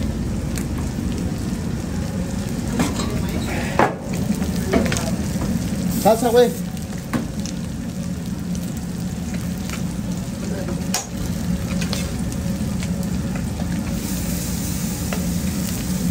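Meat and vegetables sizzling steadily on a flat-top griddle, with a steady low hum under it and scattered sharp clicks of metal spatulas. The hiss turns brighter near the end as salsa goes into the hot stone molcajete.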